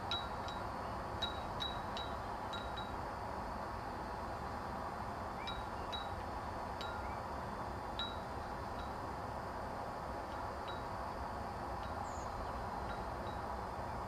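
Faint, irregular small metallic pings, a dozen or more scattered through, over a steady background hiss.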